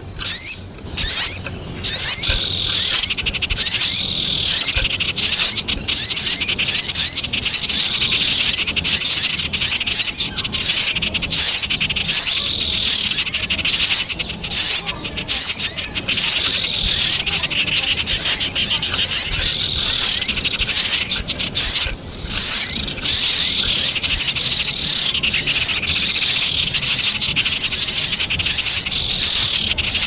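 Bird-lure recording of sunbirds' rapid high-pitched 'cuit cuit' chirps combined with the chattering calls of a common iora ('cipoh ngekrek'), played loud in quick repeating bursts separated by brief gaps.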